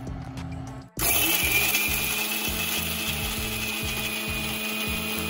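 Electric blender with a steel jar running steadily at full speed, coarsely dry-grinding roasted peanuts, sesame seeds and dried chillies. It cuts in sharply about a second in.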